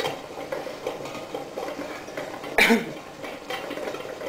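Quiet handling of vegetables and a glass jar as cauliflower florets and shredded carrot are packed in by hand. About two and a half seconds in there is one sudden, loud, short sound.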